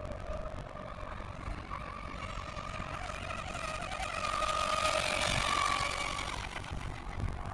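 Battery-powered RC rigger boat running at speed, its motor giving a steady whine. The whine grows louder as the boat comes closer about halfway through, then fades as it moves away.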